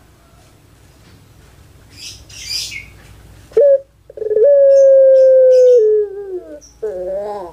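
Puter pelung (ringneck dove, Streptopelia risoria) cooing: a short note, then a long drawn-out coo held steady and sinking slowly in pitch, a lower falling note, and a wavering, warbling note near the end. A brief rustling noise comes before the call, about two seconds in.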